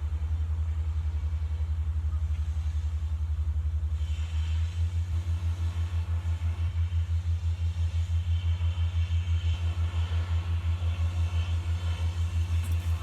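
Steady low mechanical rumble with a regular pulse of about five beats a second, like a motor running. It grows slightly louder about four seconds in.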